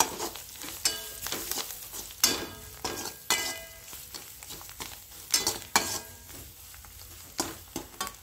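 Perforated metal ladle stirring and scraping in a metal kadhai as chopped vegetables and spice powder fry in oil. Irregular sharp metallic clinks and scrapes sound over a faint sizzle.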